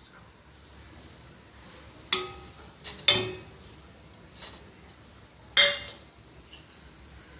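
Kitchen vessels and utensils clinking: five sharp clinks, each with a short ring, the loudest about three and five and a half seconds in.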